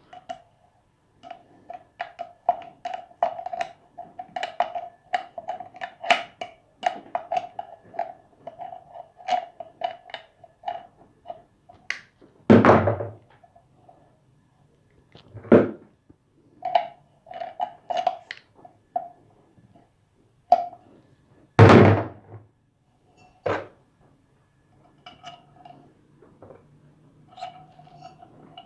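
Pliers and small metal parts clicking, tapping and scraping against an aluminium paint spray gun as its needle packing nut is tightened and the gun is put back together. About four louder thunks come in the second half.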